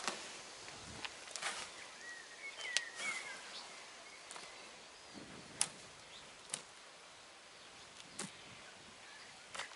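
Bare hands rummaging through loose potting mix in a plastic wheelbarrow while searching for potato tubers, with a few sharp clicks spread through it. A couple of faint bird chirps come in about two to three seconds in.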